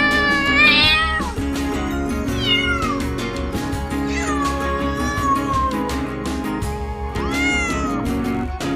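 Cat meowing over background music with a steady beat: a long meow ending about a second in, a short falling meow about two and a half seconds in, a long drawn-out meow slowly falling in pitch from about four to six seconds, and a short rising-then-falling meow near the end.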